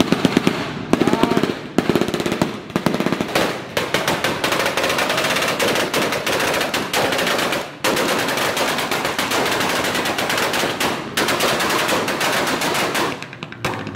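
A long, rapid string of sharp pops and bangs, crackling almost without pause, with a short break a little past the middle.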